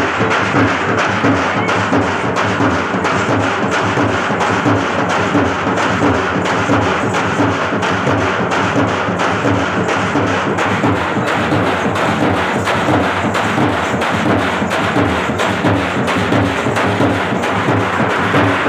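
Fast, even drumming with sharp, clacking strokes, the kind of drum beat that accompanies a peddapuli (tiger) dance.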